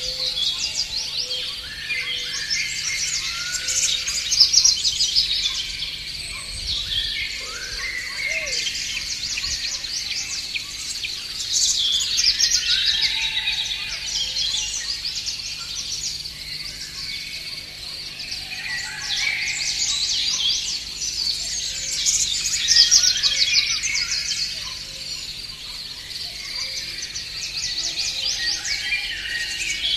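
Songbirds singing in a spring chorus, many rapid chirps and trills overlapping, with louder stretches every few seconds.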